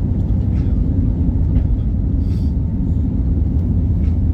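Steady low rumble of an Airbus A320's engines and rushing air, heard from inside the passenger cabin around takeoff.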